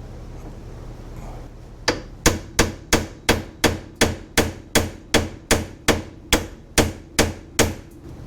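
A hammer striking metal in a quick, even series of about sixteen blows, each ringing briefly, starting about two seconds in. It is knocking a front suspension joint on a Polaris Sportsman 570 ATV to break it loose.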